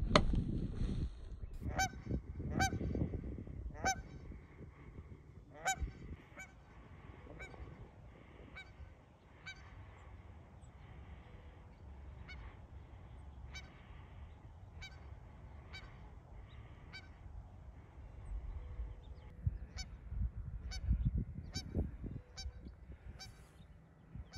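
Waterfowl giving short honking calls over and over, about one a second. A sharp click comes right at the start, and a low rumble sits underneath at the start and again near the end.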